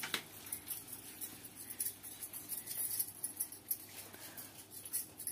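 Faint, irregular rustling and light clicks of small plastic things being handled by a toddler's hands.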